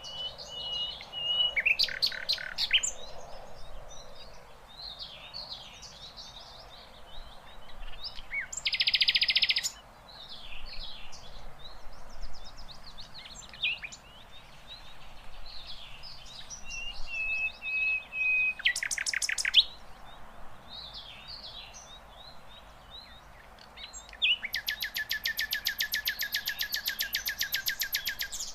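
Sikatan londo flycatcher singing: a busy run of high chirps and short whistled notes, broken by short buzzy trills, with a long, fast, rattling trill for about four seconds near the end.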